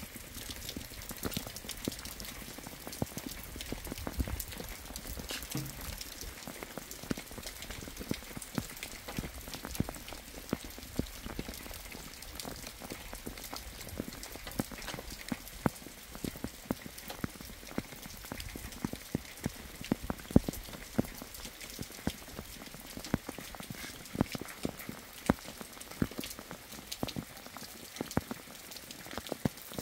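Rain falling, with many close, separate drop hits ticking at irregular intervals over a steady hiss.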